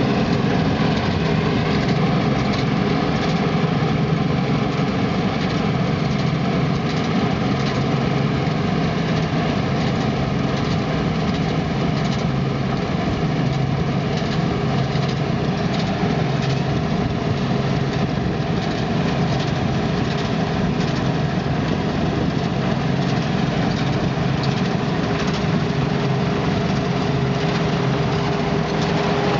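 Heavy diesel engine of farm machinery running steadily at constant speed, with a deep even hum.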